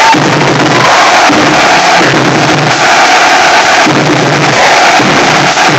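Marching drumline of snare drums and a bass drum playing a loud, dense cadence in a repeating pattern.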